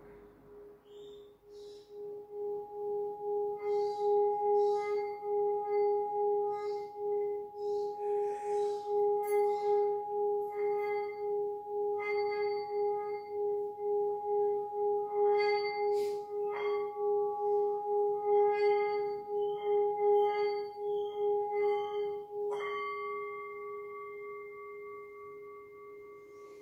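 Small handheld metal singing bowl played by circling a mallet around its rim: a steady, wavering hum that swells over the first few seconds, with light scraping from the mallet. It is struck in the second half, the last strike adding a higher ringing tone that fades slowly.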